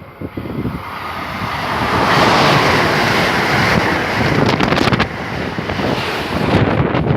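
Strong wind rushing and buffeting the microphone, swelling loud about two seconds in and staying loud.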